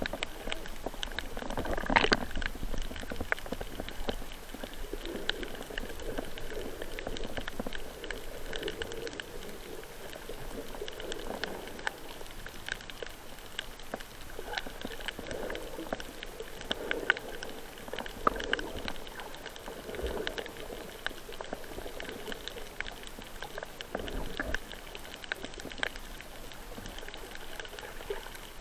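Underwater ambience picked up by a submerged camera: a muffled wash of water with many small crackling clicks scattered throughout and soft swells of water movement every couple of seconds.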